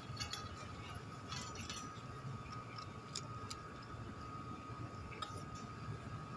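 A cat eating from a stainless steel bowl: irregular light clicks and clinks against the metal, over a faint steady high hum.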